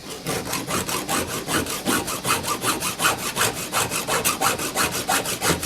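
Hand file rasping across a chainsaw chain's cutting tooth in quick, even strokes, several a second, sharpening the cutter.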